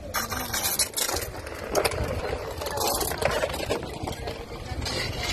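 Indistinct voices of people outdoors over a steady low rumble of vehicle and wind noise, with a few brief clinks and scrapes.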